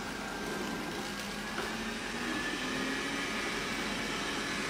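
Robot vacuum cleaner running with a steady hum.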